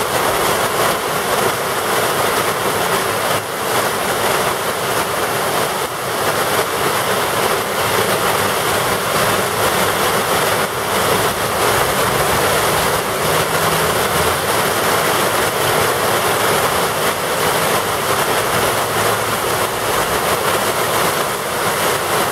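Torrential rain pouring steadily onto a flooded street, a loud, even hiss of a heavy downpour.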